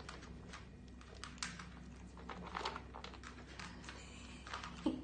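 Small dogs eating from a plastic food bowl: faint, irregular clicks and chewing.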